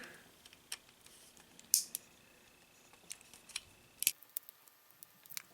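Small screwdriver working the tiny bumper screws of a plastic toy robot figure: scattered light clicks and ticks, with a couple of sharper clicks about two seconds and four seconds in.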